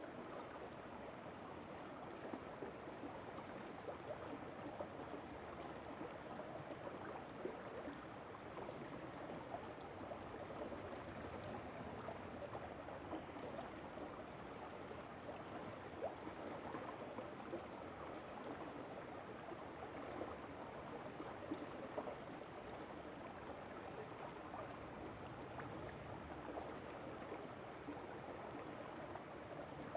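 A river flowing: a steady rush of water with many small splashes.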